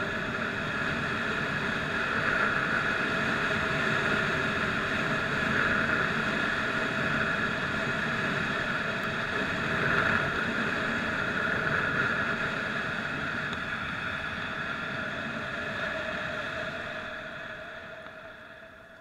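Motorcycle engine running at a steady cruising speed, with wind rushing over the helmet-mounted microphone. The sound fades out over the last few seconds.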